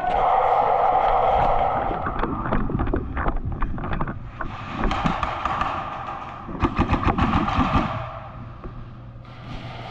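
Airsoft guns firing in rapid bursts of sharp clacking shots, with the longest and loudest burst about two thirds of the way through.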